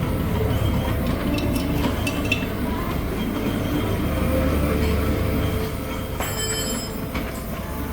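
Metalworking on an engine head cover: a steady low machine hum and rumble with a faint crackle, a few brief metal clinks, and a short high metallic ringing about six seconds in.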